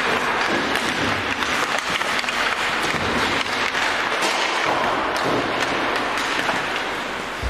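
Ice hockey warm-up: pucks clacking off sticks and boards over the steady scrape of skates on ice, a busy run of sharp knocks.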